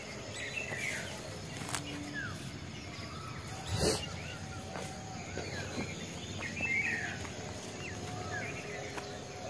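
Several birds chirping and calling at intervals over a steady outdoor hiss, with a brief thump about four seconds in.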